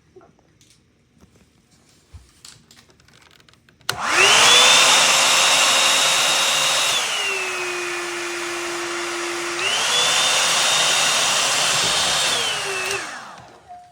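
Revlon RVDR5222F One-Step Volumizer hot air brush switched on: its motor and fan start suddenly with a high whine and a rush of air, drop to a lower speed about three seconds later, speed back up a few seconds after that, then wind down and stop near the end. Faint clicks of handling come before it starts.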